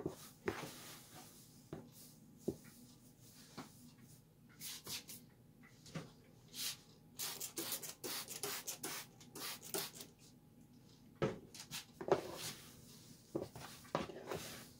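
Hands stirring and lifting shredded Virginia Gold tobacco in a plastic tub: dry rustling that comes in irregular handfuls, as the cut leaf is mixed while it is dampened for fermentation.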